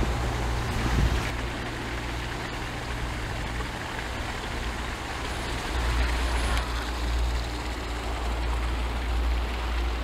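Steady low rumble and hiss of distant road traffic, growing a little louder about halfway through.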